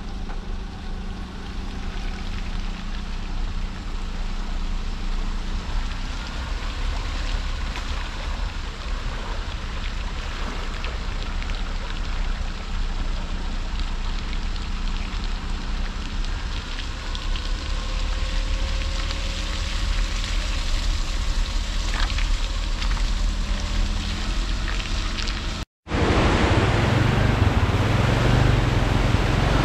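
A river in flood rushing past as a steady noise, with a faint engine hum at times. After a cut about 26 s in, a louder, heavier rush of muddy floodwater churning over rapids.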